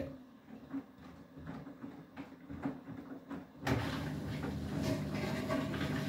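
Beko WTK104121W front-loading washing machine: a faint hum with a few light clicks, then about four seconds in the drum motor starts and the drum turns the wet laundry with a steady hum and noise.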